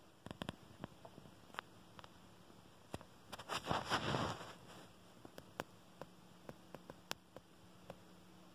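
Handling noise: scattered faint clicks and a short rustle about three and a half seconds in, over quiet room tone.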